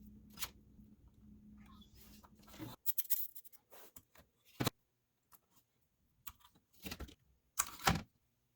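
A steady low hum that cuts off about three seconds in, then irregular clicks and clatter of small hard objects being handled, with the loudest knocks near the middle and near the end.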